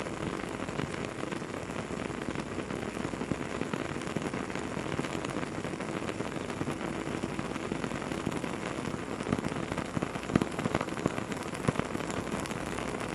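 Campfire burning, crackling steadily with many small snaps and a few louder pops after about nine seconds.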